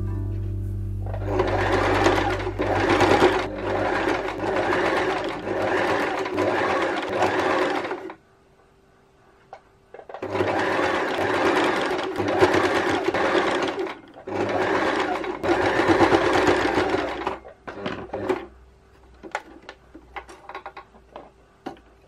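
Electric sewing machine stitching in bursts: it runs for about seven seconds from a second in, stops for two seconds, then runs again in two stretches split by a short pause, and once more briefly. Near the end there are only scattered light clicks.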